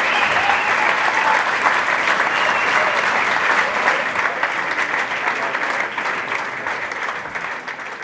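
Concert audience clapping and cheering, with a few shouts at first, the applause slowly dying down.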